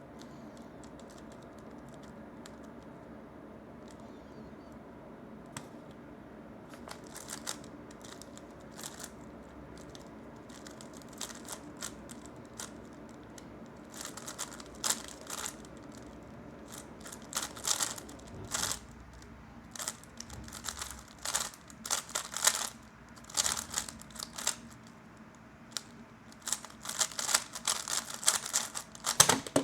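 3x3 speedcube being turned by hand, its plastic layers clicking and clacking. A few scattered clicks give way, about halfway through, to rapid flurries of turning.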